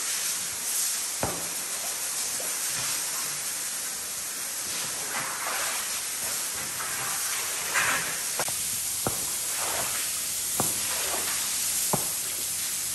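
Rubber floor squeegee pushing muddy floodwater across a tile floor: wet swishing and splashing strokes over a steady hiss, with several sharp knocks as the blade and handle hit the floor.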